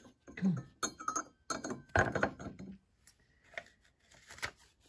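Brass candle snuffer and candle holders clinking and tapping as they are handled: a handful of sharp metallic clicks, the loudest about two seconds in, a few with a short ring.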